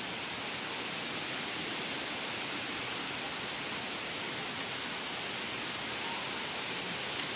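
Steady, even hiss of background noise with no distinct animal calls, and a brief click near the end.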